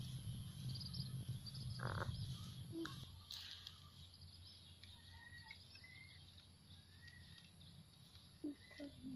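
Faint outdoor ambience of scattered short bird chirps and insect chirping, with a low rumble in the first few seconds and a couple of soft thuds near the end.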